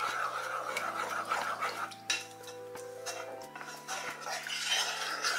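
A wooden spoon stirring and scraping a thick milk, cream and starch mixture around a saucepan, with irregular scrapes and light knocks against the pot. Soft background music with held notes plays underneath.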